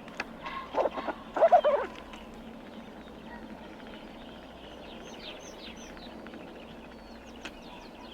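Squirrel calling: a burst of short, harsh barking calls between about half a second and two seconds in, the loudest near the end of the burst, followed by a few faint high chirps that fall in pitch near the middle.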